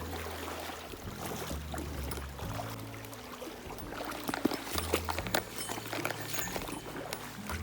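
Stream water splashing and sloshing, with sharp irregular splashes, as hands reach into a shallow mountain stream to grab fish among the rocks. Quiet background music with a low, stepping bass line plays underneath.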